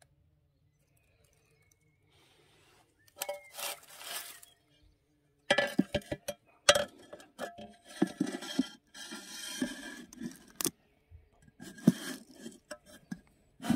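Glass pane of a small metal-framed greenhouse being lifted and slid in its frame: irregular scraping and rubbing with sharp clinks of glass on metal, starting about three seconds in.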